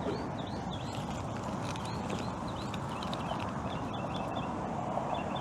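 Quiet outdoor ambience: a steady hiss with short high chirps scattered through it.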